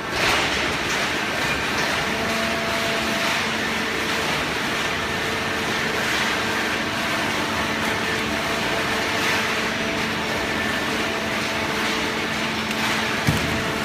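Horizontal hydraulic baler running while baling paper: a steady hum from its motor and pump over an even rushing noise. There is a sharp knock just after the start and a short one near the end.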